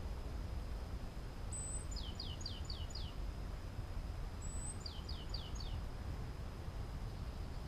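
A small songbird sings twice, each phrase a thin high note followed by four or five quick notes that drop in pitch, over a steady low rumble.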